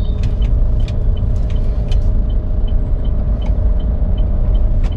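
Car running and moving slowly, heard from inside the cabin as a steady low engine and road rumble with a faint constant hum. A light regular ticking, about two or three ticks a second, runs through the second half.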